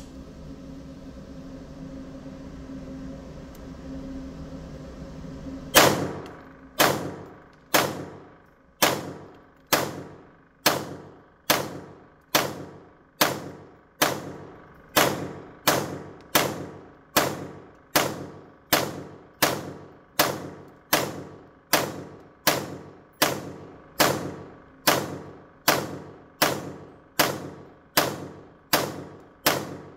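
HK416 .22 LR semi-automatic rifle fired unsuppressed, about 29 single shots at a steady pace of roughly one a second, getting slightly faster, each shot ringing briefly off the walls of an indoor range. The shooting starts about six seconds in, after a steady low hum.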